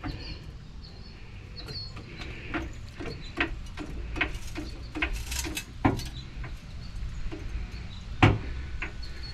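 Irregular metallic knocks and clicks, about a dozen, the loudest about six and eight seconds in, over a steady low rumble: work on the jack and jack stands under a raised pickup truck.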